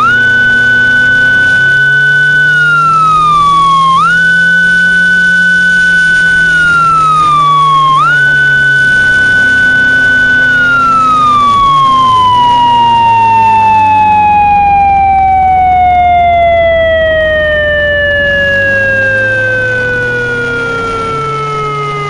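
Synthesized Japanese police motorcycle siren: the tone rises quickly to a high pitch, holds for a couple of seconds, sags and snaps back up twice, then after the third hold falls slowly and steadily over about ten seconds as it winds down. A lower humming tone rises and falls slowly underneath.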